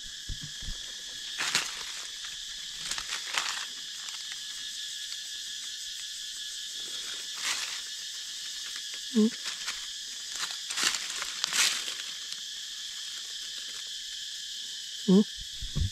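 Steady chorus of forest insects, a high continuous shrill, with a few short crackling rustles of dry leaf litter.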